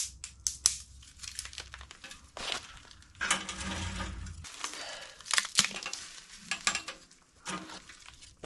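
Dry pine cones, twigs and bark being handled and packed into the firebox of a small stainless steel tent wood stove: scattered crackles, rustles and light knocks against the metal.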